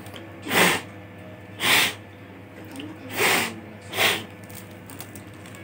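Four short, hissing puffs of air blown into the opened laptop to clear out dust loosened by the brush.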